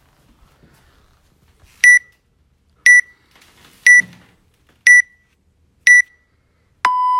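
Electronic workout countdown timer: five short, high beeps one second apart, then a long, lower beep starting near the end that signals the start of the workout.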